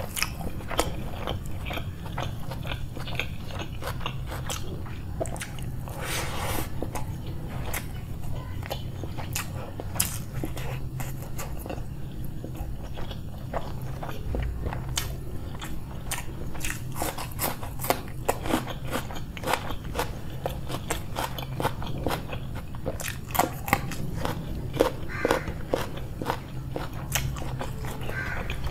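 Close-miked eating sounds: a person chewing egg biryani with crunchy raw onion and green chili, with many wet, crisp clicks and crunches running throughout over a faint steady hum.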